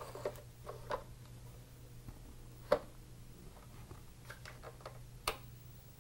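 Scattered light plastic clicks and knocks as a cartridge is pushed into a Timex Sinclair 2068's cartridge slot and handled, with two sharper clicks about three and five seconds in. A steady low hum runs underneath.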